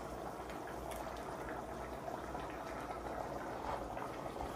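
Pot of soup boiling on an electric hot plate: a steady bubbling.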